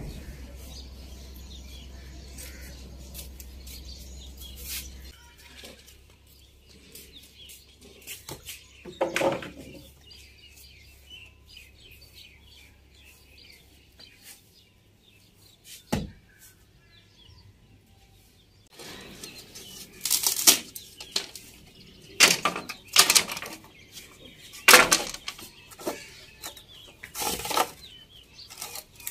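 Wooden planks and sticks being handled and dropped on a concrete floor: repeated sharp knocks and clatters in the last third, after a quieter stretch with a few single knocks.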